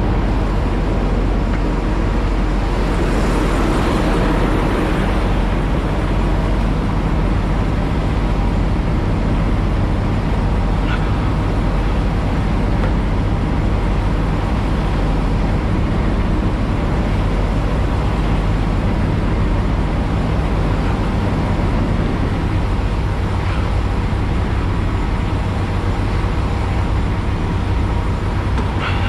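Semi-truck diesel engine running steadily, a constant low hum heard from inside the cab.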